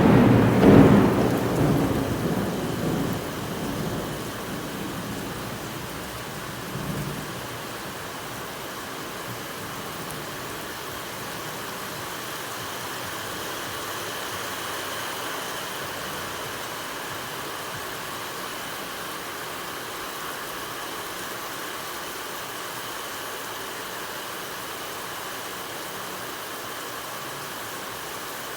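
A rumble of thunder that dies away over the first few seconds, then rain falling steadily.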